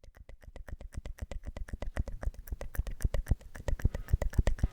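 Wet, sticky ASMR mouth sounds close to the microphone: a rapid run of lip and tongue clicks, several a second, growing louder over the first second.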